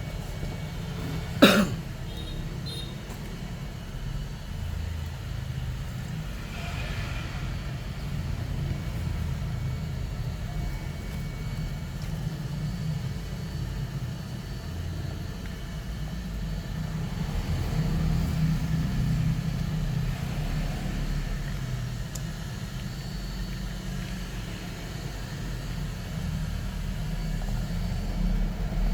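Low, steady rumble of road traffic, with one sharp click about a second and a half in.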